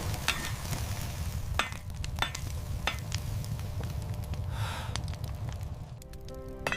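Crackling fire sound effect for a blacksmith's forge, with a few sharp pops. A few steady musical tones come in near the end.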